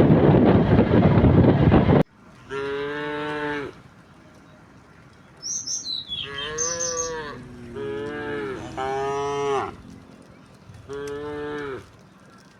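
A loud rushing noise stops abruptly about two seconds in. Domestic cattle then moo five times, each moo about a second long. A bird gives one short falling whistle about halfway through.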